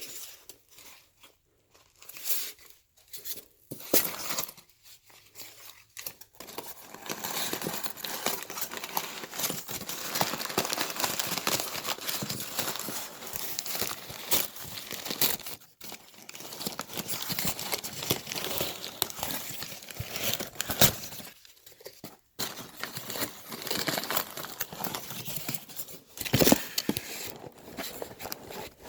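Shipping packaging being opened by hand: crinkling, rustling and tearing with many sharp crackles, a few scattered crackles at first, then almost continuous with brief pauses.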